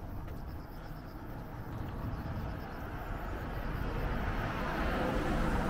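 A car approaching along the road, its tyre and engine noise growing steadily louder over the last few seconds.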